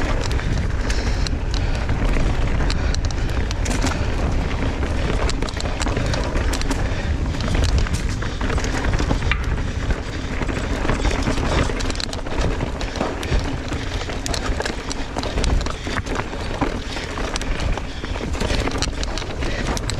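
Mountain bike ridden fast down a trail, heard from a camera on the rider or bike: steady wind rush on the microphone with constant rattling and knocking of the bike and tyres over rough ground.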